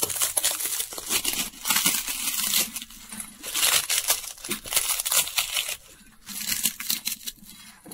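Dry wafer sheets being crushed by hand in a stainless steel bowl: a dense, irregular crackling and crunching that thins out and grows fainter in the last two seconds or so.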